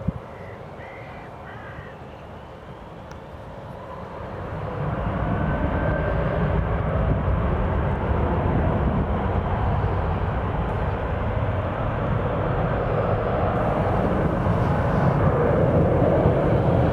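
Airbus A319 jet engines spooling up for takeoff: the noise swells about four seconds in and then holds as a loud, steady jet roar.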